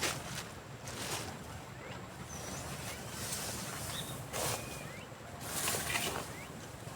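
Outdoor scrub ambience: a few short rustling crunches, a second or more apart, with faint short bird chirps between them.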